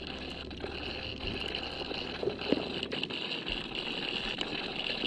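Underwater sound picked up by a submerged camera: muffled water noise with a steady high-pitched whine and scattered faint clicks, a low rumble fading out about halfway through.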